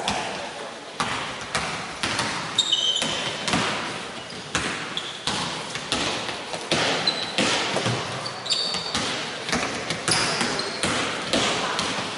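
Basketballs bouncing on a hardwood court, several dribbles in an uneven patter of sharp thuds, with a few short high squeaks of shoes on the floor, echoing in a large sports hall.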